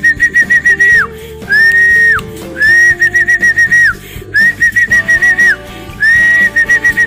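Loud, high whistle calls in a repeating pattern: a long held note, then a quick run of short chirps at about five a second, over and over. This is a pigeon fancier's call to bring a returned racing pigeon down from its perch into the loft.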